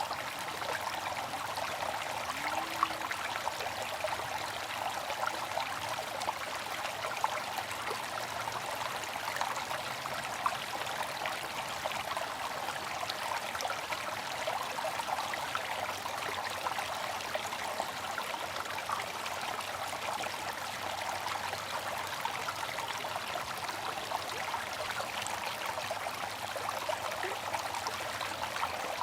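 Bamboo water fountain: a steady trickle of water with fine, continuous splashing.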